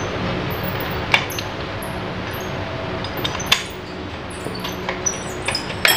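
Metal parts and hand tools clinking and knocking while a gondola hoist is taken apart: a sharp clink about a second in, another at about three and a half seconds, and several quick ones near the end, over a steady background hum.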